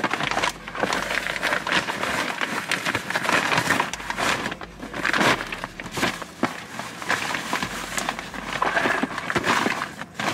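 Rustling and crinkling of clothes, a box and a reusable tote bag as items are handled and packed, with irregular small knocks and clicks throughout.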